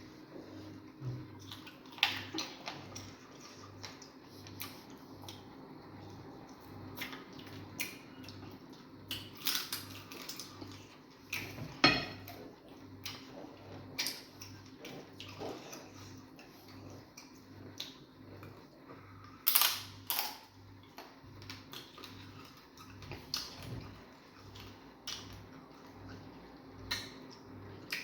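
Eating sounds: irregular short clicks, smacks and light knocks of dishes and utensils, with a few louder knocks about 12 s in and twice around 20 s in.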